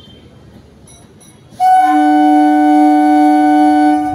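EMU local train's horn: one loud, steady blast starting about a second and a half in and held for about two and a half seconds, two pitches sounding together.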